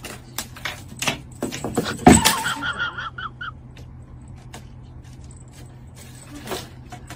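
A cat pounces and scrambles on a wooden floor after a feather wand toy, making quick knocks and scrabbling, with one heavy thump about two seconds in. A second of short high-pitched squeaks follows it, and after that only scattered light taps.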